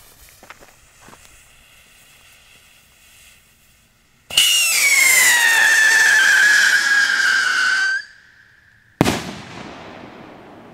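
Blackboxx Ghost whistle rocket: the fuse hisses and crackles faintly, then about four seconds in the rocket launches with a loud whistle that slides slowly down in pitch for about four seconds before cutting off. A second or so later a single sharp bang goes off and fades away.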